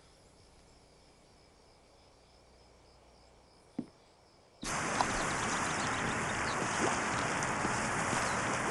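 Near silence of a quiet room, with one short knock a little before halfway. Then, cutting in suddenly, the steady splashing of a swimmer doing laps in a pool.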